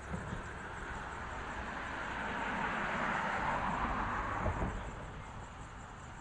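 A vehicle passing by: a rushing noise that swells to a peak about three to four seconds in and then fades away.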